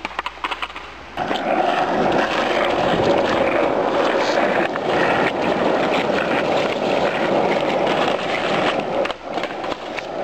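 Skateboard wheels rolling over rough asphalt: a steady, loud grinding rumble that starts suddenly about a second in, after a few sharp clicks, and fades near the end.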